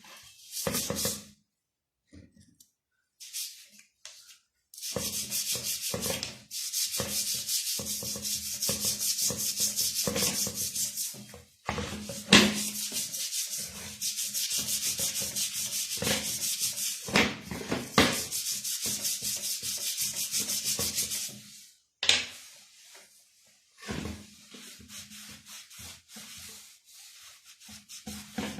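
Rapid back-and-forth hand scrubbing of a motorcycle's rear wheel hub with cleaner and red polishing compound, a hissy rubbing stroke repeated several times a second. The scrubbing stops briefly near the start and again past the middle, and runs lighter toward the end.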